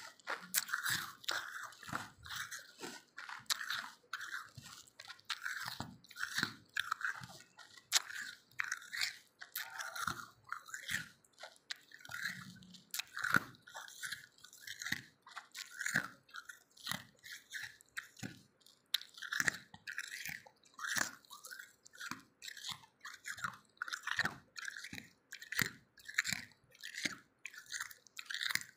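A person biting and chewing crunchy frozen milky ice, a steady run of short crunches about two a second.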